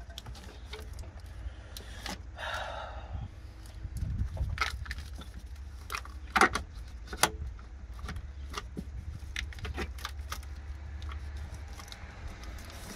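Scattered small metallic clicks and clinks of parts and tools being worked by hand in a cramped engine bay, with a sharper knock about six and a half seconds in. A steady low rumble runs underneath.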